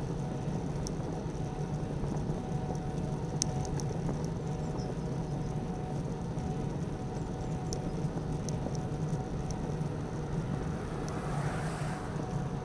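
Steady wind and road rumble from a bicycle-mounted camera riding along a road, with occasional small high clicks and a brief swelling hiss near the end.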